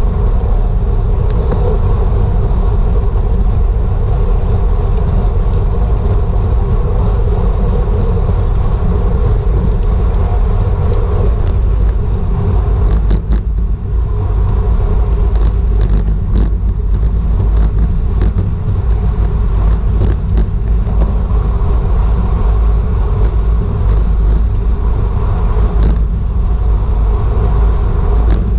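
Wind buffeting a GoPro's microphone on a racing bicycle at speed: a loud, steady low rumble. Scattered sharp ticks come and go over the second half.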